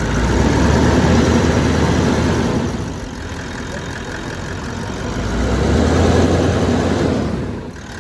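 Diesel car engine running on its repaired fuel injection pump, growing louder twice for about two seconds each time and dropping back in between.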